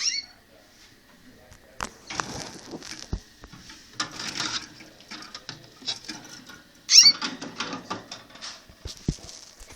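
Canaries in their cages: two sharp, high chirping calls, one at the very start and the loudest about seven seconds in, amid rustling and scattered clicks.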